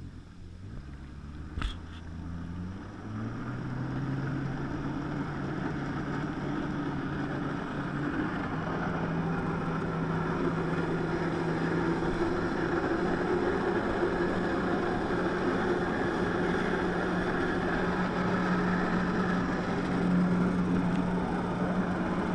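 Personal watercraft engine driving a flyboard. Its note steps up in pitch about two seconds in and again about eight seconds in, then holds at a steady high pitch as the throttle is opened to push water up the hose to the board. A single sharp click comes just before the first rise.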